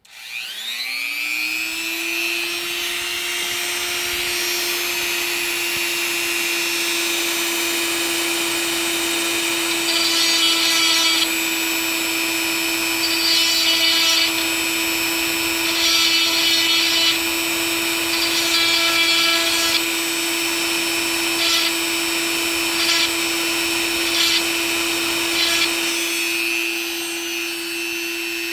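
A rotary tool with a fine ball-tip bit spins up, runs at a steady high whine and spins down at the end. In the middle it gives repeated rasping grinding bursts, four longer ones and then several short touches, as the bit shaves the plastic nubs off a Kailh Box switch stem.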